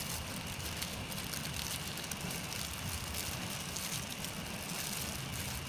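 Faint, steady background hum and hiss with a low rumble and no distinct events.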